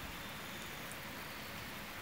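Quiet, steady hiss of room tone with no distinct event.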